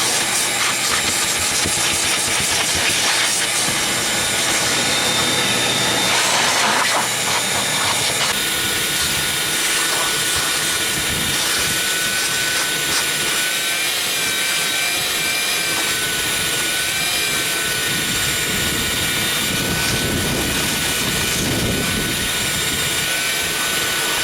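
Vacuum cleaner motor running steadily with a high whine that wavers slightly in pitch.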